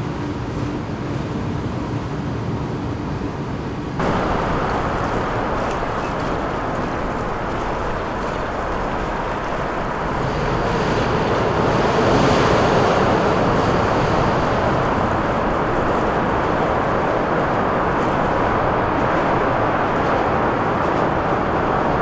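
Steady rushing wind and water noise aboard a motoring sailing catamaran. It jumps louder about four seconds in and swells further about ten seconds in.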